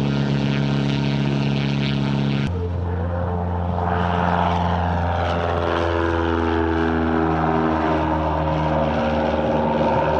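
Propeller aircraft engine droning steadily. About two and a half seconds in, the sound cuts abruptly to another stretch of propeller engine whose pitch slowly falls.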